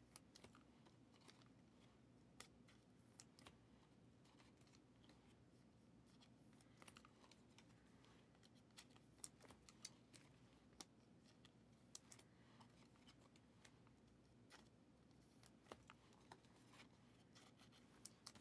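Near silence broken by faint, scattered clicks and scrapes of Panini Prizm football cards being handled and flipped through by hand.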